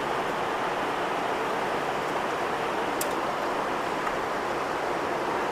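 Steady, even hiss of background room noise, with a single faint click about three seconds in.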